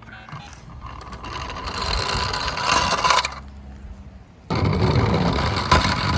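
Small toy police cars' wheels rolling and rattling down a slope, the noise building for about three seconds and then stopping abruptly; a second, louder run starts suddenly about four and a half seconds in, with a couple of knocks near the end.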